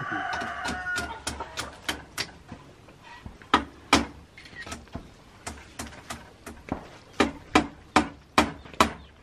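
Hammer blows on the wooden frame of a bamboo chicken cage under construction: sharp knocks about two to three a second, loudest about three and a half seconds in and again over the last two seconds.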